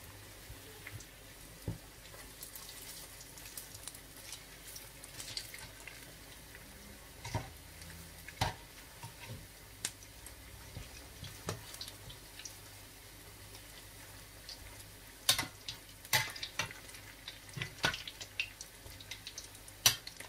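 Potato-coated eggs deep-frying in hot oil: a steady bubbling sizzle, with sharp clicks and taps as a slotted spatula turns them in the pan, most of them in the last few seconds.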